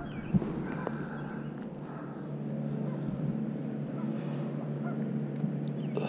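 Electric trolling motor on a small fishing boat running with a steady low hum, with faint honking bird calls over it.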